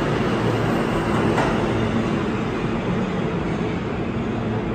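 An R160B New York City subway train pulling out of an underground station, its last cars passing with steady wheel-on-rail and motor noise that fades slightly as it leaves. There is a single sharp click about a second and a half in.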